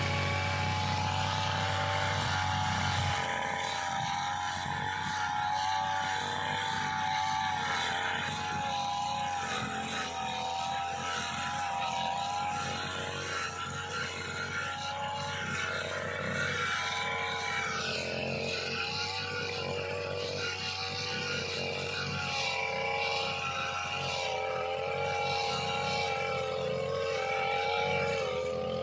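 Backpack brush cutter's small petrol engine running at high speed, its pitch wavering up and down as the cutting head goes through tall grass.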